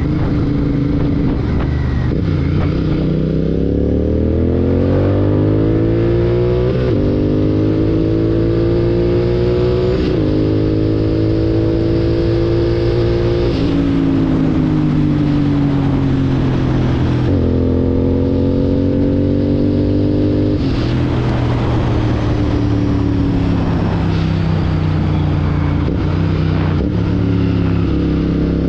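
Royal Enfield Continental GT 650's parallel-twin engine through a Red Rooster Performance aftermarket exhaust, revving up through the gears with two upshifts in the first ten seconds. It then rolls off and slows with a downshift, and settles into a steady cruise.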